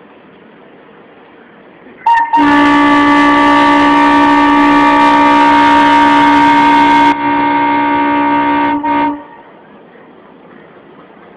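Air horn of an Indian Railways WDM-series diesel locomotive, sounding one long, loud, steady blast of several tones for about seven seconds. It has a brief break right after it starts, drops slightly in level near the end and then cuts off.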